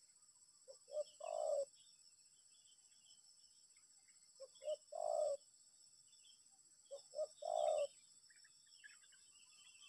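Spotted dove (tekukur) cooing three times, about three seconds apart; each phrase is two short notes followed by a longer, drawn-out coo.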